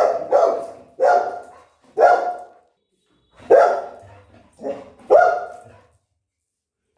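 A dog barking, about six loud single barks roughly a second apart, stopping about a second before the end.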